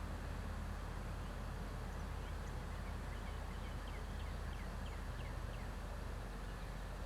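A bird calls a quick series of short, falling chirps in the middle of the stretch, over a steady rushing outdoor background with a deep low rumble.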